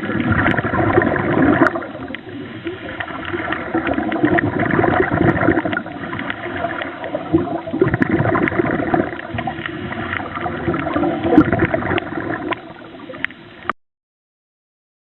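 Underwater bubbling and gurgling water, rising and falling in loudness. It cuts off suddenly near the end, leaving silence.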